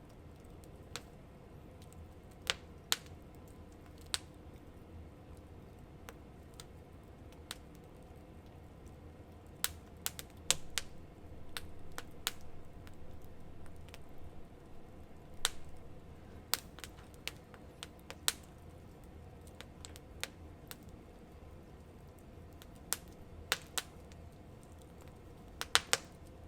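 Wood campfire crackling, with irregular sharp pops and snaps from the burning wood over a low steady rumble. The pops come in a cluster partway through and a quick run near the end.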